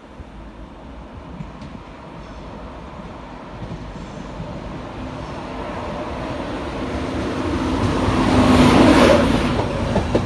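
LNER Class 91 electric locomotive-hauled train running into the station: a rumble that grows steadily louder as it approaches, peaking with a rush of hiss about nine seconds in as it draws alongside, then easing slightly.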